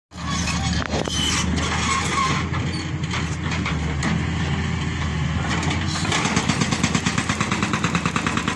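Tracked hydraulic excavator's diesel engine running steadily under load. About six seconds in, its hydraulic breaker starts hammering rock, a rapid even pounding of several blows a second over the engine.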